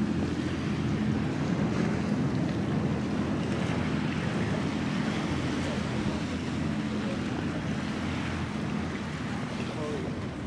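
A steady low engine hum under wind noise on the microphone.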